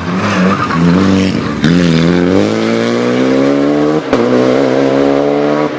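Renault Clio Rally5 rally car's engine under hard acceleration. Its pitch climbs steadily through each gear, with quick upshifts about a second and a half and four seconds in.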